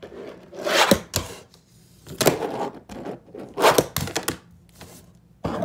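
Fingerboard (finger skateboard) tricks on a tabletop and a paper-covered wedge obstacle: four short bursts of wheels rolling and the deck clattering, each with sharp knocks as the board pops and lands.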